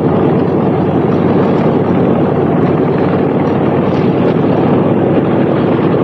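Several P-51 Mustang fighters' V-12 piston engines running, propellers turning, in a loud, steady drone.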